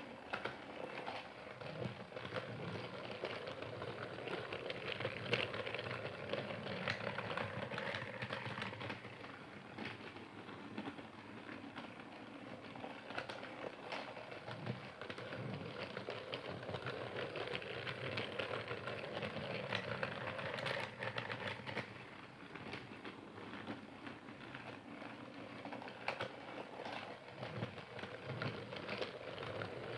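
Percy toy train running steadily: a small motor's whir with dense, rapid clicking and clattering of its wheels and gears.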